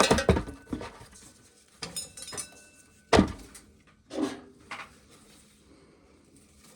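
Dry corn kernels and cobs clattering against a hard container in a handful of separate knocks and rattles, the loudest about three seconds in.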